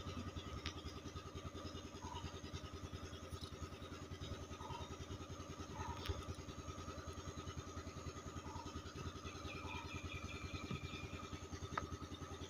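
A motor running steadily nearby, a low drone with a fast, even pulse, with a few faint clicks over it.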